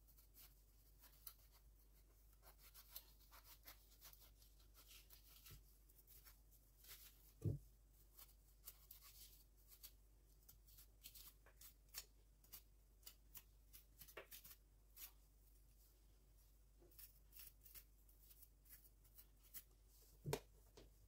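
Faint scraping and light clicks of a kitchen knife scooping the seeds out of quartered zucchini on a plastic cutting board, with a dull knock about seven seconds in and another near the end.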